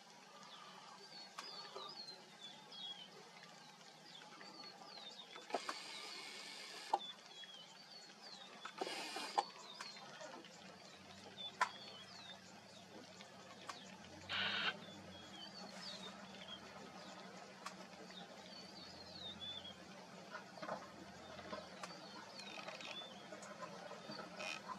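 Quiet open-air ambience with faint, repeated short falling bird chirps throughout. Three brief noisy rustles stand out, about six, nine and fourteen seconds in.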